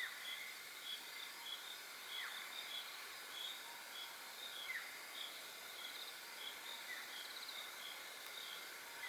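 Faint evening bush chorus: steady high chirping of insects and birds, with a short falling whistle call repeated four times, about every two and a half seconds.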